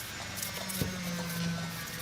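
Background music, with a low note held for about a second and a half and a single light click partway through.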